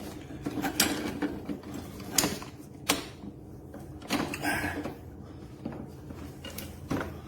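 Parts being fitted together by hand during lawn mower assembly: a handful of sharp clicks and knocks with rattling and rustling between them as a part is worked into place until it sits tight.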